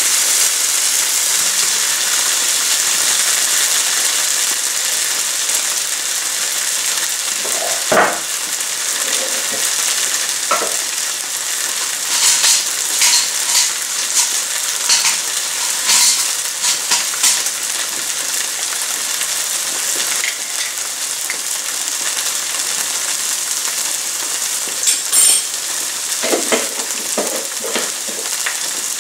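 Oil sizzling steadily in a non-stick frying pan as a sauce and spice mixture fries, with a wooden spatula stirring and scraping; a knock about 8 seconds in and bursts of short clicks and scrapes in the middle and near the end.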